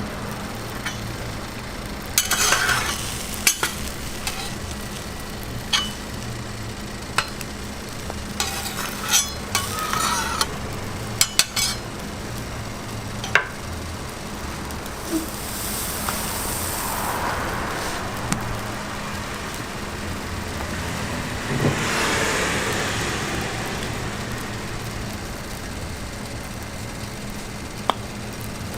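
Food sizzling on a hot griddle, with scattered sharp clicks and knocks of metal utensils, mostly in the first half. A steady low hum runs underneath, and the sizzle swells briefly about halfway through.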